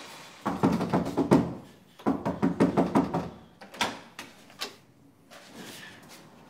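Hurried knocking on a door: two flurries of rapid knocks, then two single knocks.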